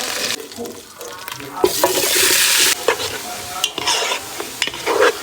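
Food sizzling in a hot pan as it is stir-fried, with a utensil scraping and clinking against the pan. A loud burst of sizzling comes just under two seconds in.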